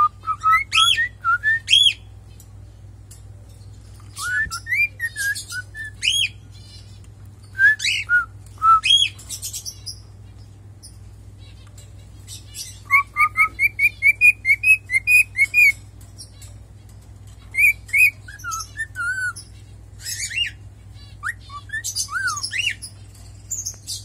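Cockatiel singing: phrases of whistled notes that swoop up and down, coming in bursts with short pauses between them. In the middle is a run of quick repeated notes, about four a second.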